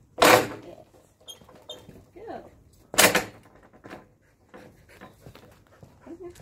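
Dog-agility seesaw board banging down onto concrete as it tips, two loud bangs about three seconds apart.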